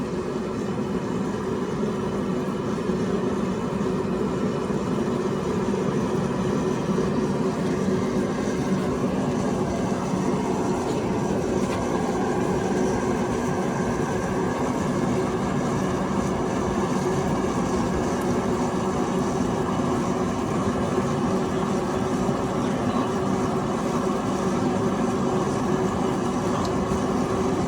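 A machine running with a steady drone and a low hum that holds without change.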